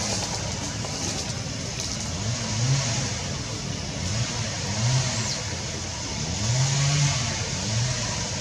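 A motor vehicle engine, its pitch rising and falling several times as it revs, over a steady high hiss.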